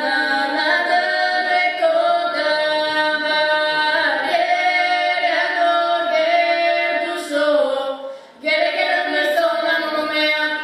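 Two female voices singing a Bulgarian folk song as a duet, holding long, wavering notes, with a short pause for breath about eight seconds in.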